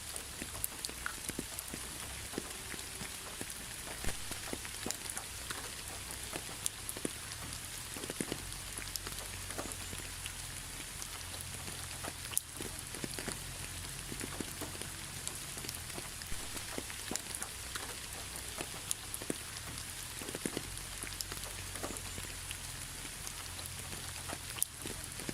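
Steady rain falling, with many individual drops tapping sharply on a surface.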